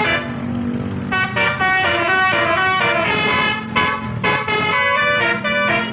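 Bus basuri (telolet) musical horn playing a fast tune, several horn tones sounding together and stepping from note to note with brief breaks.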